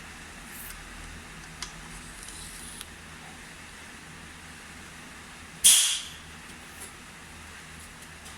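Pantograph engraving machine running with a steady low hum, with a few faint clicks and, about five and a half seconds in, one short loud hissing scrape that fades quickly.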